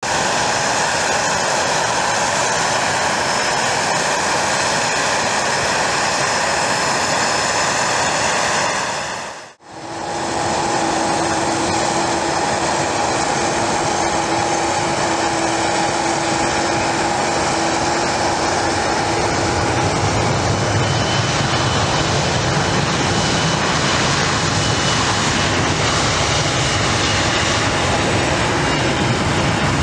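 Aircraft turbine engines running with a steady whine, broken by a brief fade to silence about nine and a half seconds in. After it, a Delta Connection Embraer regional jet's turbofans run with a steady high whine, and a deeper rumble builds underneath from about twenty seconds in.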